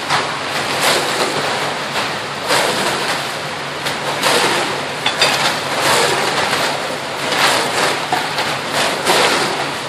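Wet concrete running down a ready-mix truck's chute into the sidewalk forms while shovels work it: a steady rushing wash with irregular louder surges every second or so.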